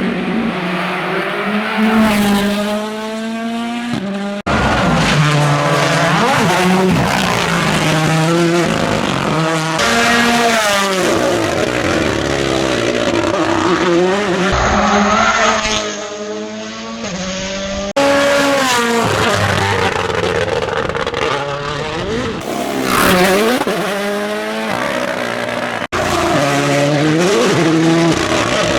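Rally cars at full stage speed, in a series of separate passes: engines revving hard, pitch climbing and dropping through gear changes, braking and acceleration.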